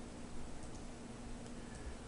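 A couple of faint computer mouse clicks about half a second in, over low steady microphone hiss.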